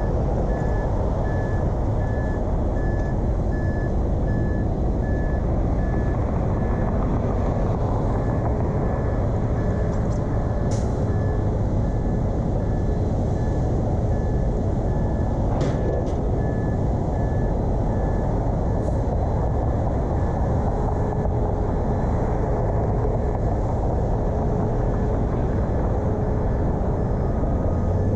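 Steady rumble of a car driving, road and engine noise picked up by a dash-mounted camera, with a faint high tone pulsing evenly and a couple of faint ticks.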